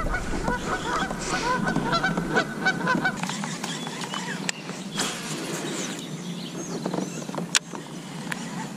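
Geese honking in a quick repeated series for about the first three seconds, then a few sharp clicks and light splashes as a topwater frog lure is cast and worked across the water.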